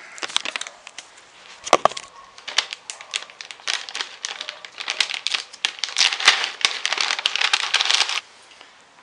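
Clear plastic pouch of turtle food crinkling and crackling as it is handled and opened. The rustling stops a little before the end.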